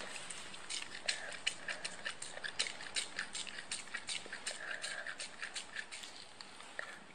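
Syringe plunger on a YAMIK sinus catheter worked rapidly back and forth, giving a run of sharp clicks and squelches about three to four a second as the drug is pumped into the nose, thinning out near the end.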